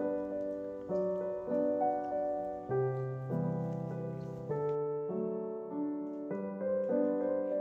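Slow piano music: notes and chords struck about once a second, each fading away before the next.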